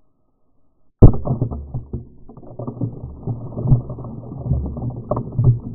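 Half a pound of Tannerite packed in a pumpkin detonating when hit by a .308 rifle bullet: a sudden loud blast about a second in, followed by low rumbling and scattered thumps that fade out over the following seconds.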